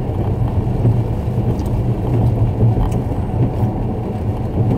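Steady low hum of a car engine idling, heard inside the closed cabin.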